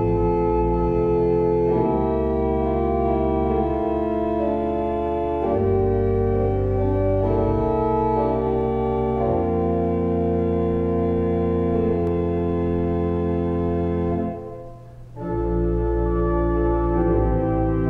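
Pipe organ playing sustained chords over low pedal notes, the chords changing every second or few, with a brief break about fourteen and a half seconds in before it resumes.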